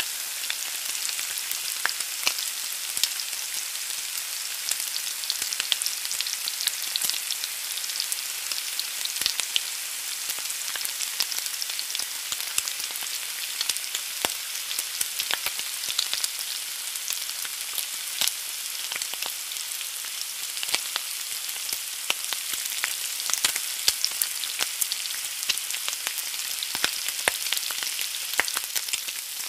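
An egg frying in hot fat in a pan: a steady sizzle with many small crackles and pops all through.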